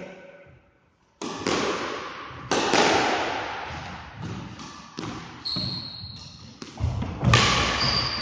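Squash ball being struck by rackets and hitting the court walls and floor: a string of sharp smacks starting about a second in, each ringing in the enclosed court. Short high squeaks of shoes on the court floor come twice in the second half.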